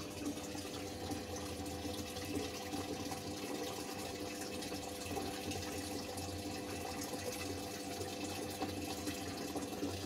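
Water running steadily into the tub of a Polytron single-tub automatic washing machine through its inlet, with a steady hum under it. The tub is filling and holding its water: the repaired drain valve is no longer leaking.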